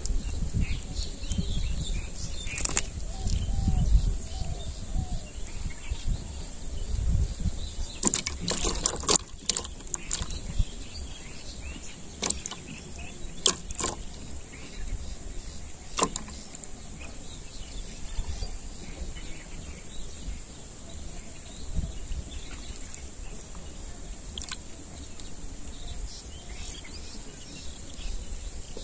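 Outdoor ambience with wind gusting on the microphone, strongest in the first third. A handful of sharp clicks and knocks come around the middle, over a steady high hiss.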